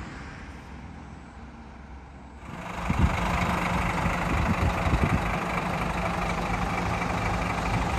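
Heavy diesel bus engine idling steadily, coming in about two and a half seconds in, with a few knocks around the middle.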